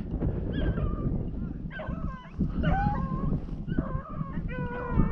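Several rabbit hounds baying as they run a rabbit, short rising-and-falling calls roughly once or twice a second, with voices overlapping near the end.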